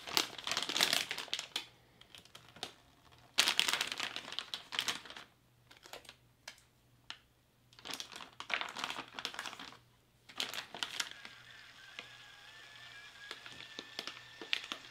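Thick plastic ration pouches and bags crinkling and rustling in irregular bursts as a main-course tray is slid into its flameless ration heater bag. In the last few seconds the rustling gives way to a faint steady hiss with a thin wavering tone.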